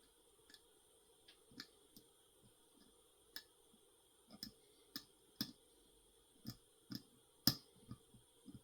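Faint, irregular clicks and taps of a lock pick working the pins inside a Schlage Primus Everest cylinder during picking, about a dozen in all, the loudest about seven and a half seconds in.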